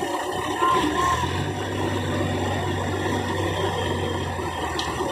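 Heavy diesel engine running steadily with a low hum, over a rough background noise.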